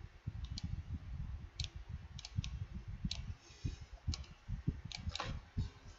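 Irregular sharp clicks at a computer, about eight over six seconds, as keys and mouse buttons are pressed, over soft dull thumps.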